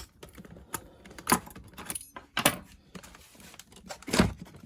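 Irregular small clicks, taps and rustles as a lock-picking tool and a packaged mortice lock are handled, with a louder knock about four seconds in.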